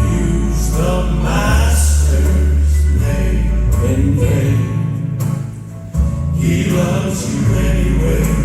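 Gospel quartet song: a bass-heavy accompaniment under voices singing in harmony, with long, sustained bass notes.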